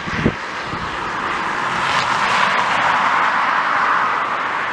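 Airbus A350's Rolls-Royce Trent XWB jet engines on final approach, a broad engine noise growing steadily louder as the aircraft nears. Wind buffets the microphone with a low thump just at the start.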